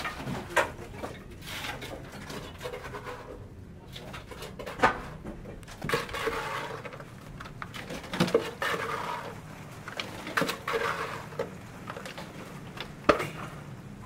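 Scattered sharp knocks and scraping of hand masonry work: a trowel, a mortar bucket and lightweight concrete blocks being set and tapped into place.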